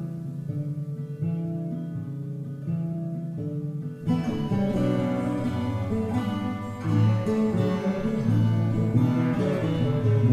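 Instrumental background music led by plucked guitar, growing fuller and brighter about four seconds in.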